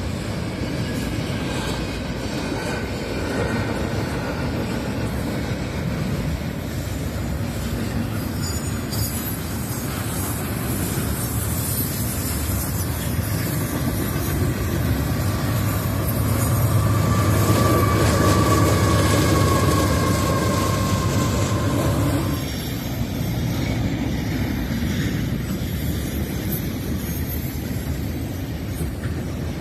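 Double-stack intermodal container cars of a freight train rolling past at track side: a steady rumble of steel wheels on the rails. A thin, high wheel squeal runs over it, loudest in the middle, and stops suddenly about three-quarters of the way through.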